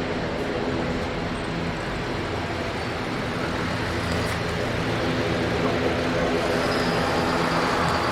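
Airbus A350's Rolls-Royce Trent XWB jet engines running as the airliner rolls along the runway after landing: a steady rumble with low steady tones, growing a little louder over the second half.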